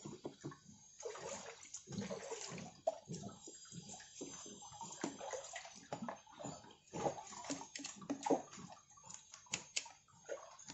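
Water splashing and trickling while a plastic submersible pond pump is rinsed and scrubbed by hand, with scattered short knocks and scrapes from handling the pump housing.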